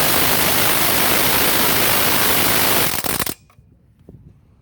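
Ryobi P235 cordless impact driver hammering in reverse on a lug nut through an impact socket, a loud, fast, steady rattle that stops about three seconds in. The nut does not break loose: the driver cannot overcome the lug nut's torque.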